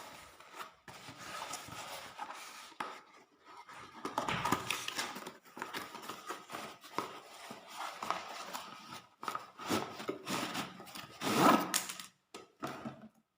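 Hands handling a newly delivered tripod and its packaging: irregular rubbing, scraping and rustling, loudest about eleven seconds in.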